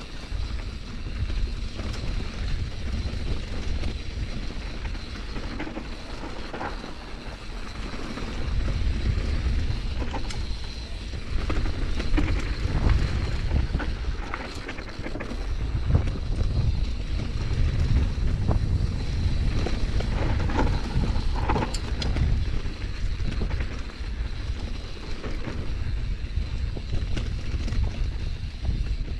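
Mountain bike ridden over a rough dirt singletrack trail: wind buffeting the microphone, tyres rolling over dirt and stones, and frequent clatters as the bike jolts over bumps, a little louder from about eight seconds in.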